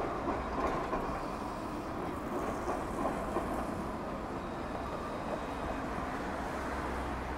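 Steady city street traffic noise: vehicles running past on a wet road.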